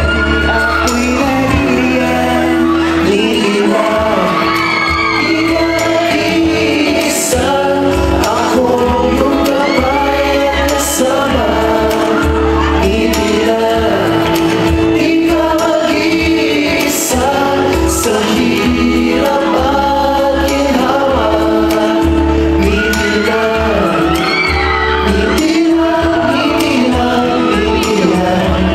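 Male vocal group singing a pop song live into microphones over loud amplified backing music.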